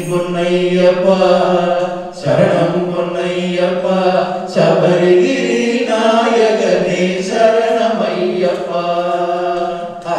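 Male voices singing a Hindu devotional bhajan chant without instruments, in long held phrases.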